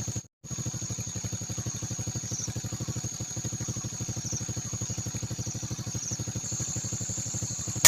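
A small engine running steadily, a rapid even pulsing with a thin high whine above it. A sharp crack with a short ringing tone comes at the very end.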